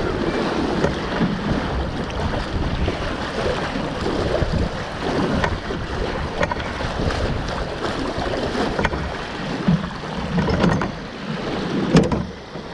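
Water rushing and splashing along the hull of an F16 Viper catamaran under sail, with wind buffeting the microphone. A few sharp clicks, the loudest near the end.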